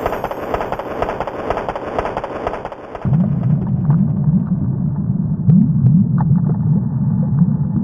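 Yamaha PSR-E373 keyboard's built-in sound effects played from the keys. First comes a dense crackling noise, then about three seconds in a deeper, louder rumble.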